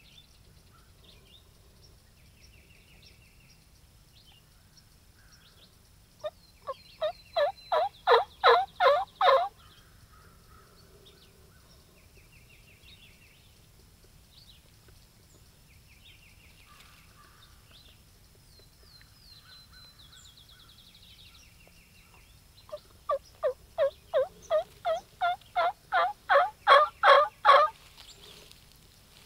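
Turkey yelping: two runs of rapid yelps at about four a second, one about six seconds in and a longer one near the end. Each run builds in loudness, with faint songbird chirps between them.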